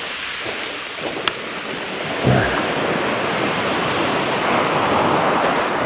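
Waves breaking and washing over a shingle beach, with wind buffeting the microphone. There is a single sharp click about a second in, and the surf swells louder about two seconds in.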